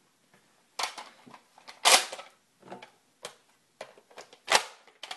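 Nerf N-Strike Elite Alpha Trooper CS-12 blaster being loaded and primed: the plastic dart magazine snapping in and the pump slide being racked. It makes a series of sharp plastic clacks and snaps, loudest about two seconds in and again near the end.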